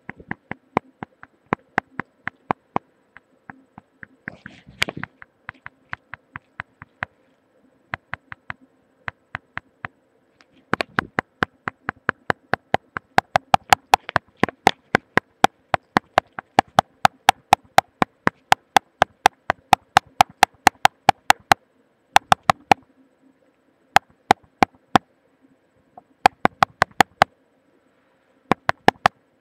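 Sharp mouth clicks from the teeth or tongue, picked up through a webcam microphone held against the head. They come a couple a second at first, then in quick runs of about four a second from about eleven seconds in, with gaps near the end. A faint steady hum sits underneath, and a brief rustle comes about four seconds in.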